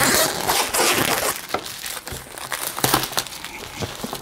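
Plastic film wrapping on a cardboard box being slit with a utility knife and peeled off, with a dense run of crinkling and crackling that starts suddenly.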